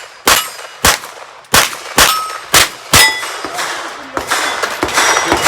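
A rapid string of about six .22 rimfire pistol shots at steel targets, each hit ringing the steel plate with a short metallic ding. The shots come roughly every half second through the first three seconds.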